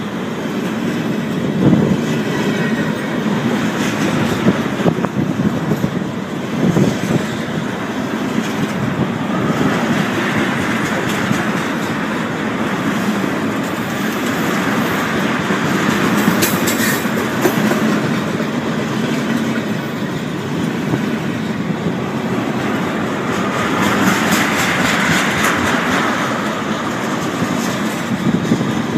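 Freight train tank cars rolling past: a steady rumble of steel wheels on rail, with repeated clacks as the wheels cross rail joints.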